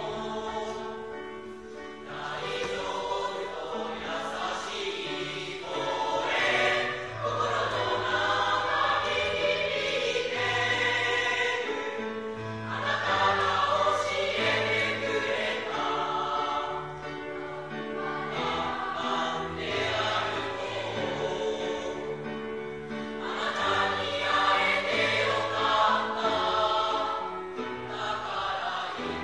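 Mixed school choir of boys and girls singing a song in parts, the volume swelling and easing phrase by phrase.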